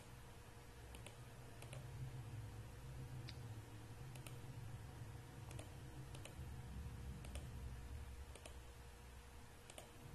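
Computer mouse clicking, single clicks at irregular intervals roughly a second or more apart, over a faint low hum.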